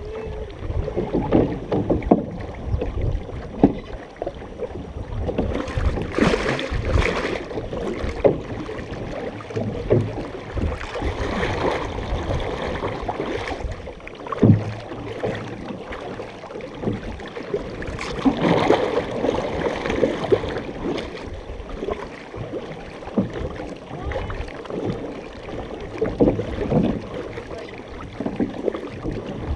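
Canoe paddles dipping and pulling through the water close beside the hull, with splashing and occasional knocks of paddles against the canoe. Louder bursts of splashing come about every five to seven seconds over a low wind rumble on the microphone.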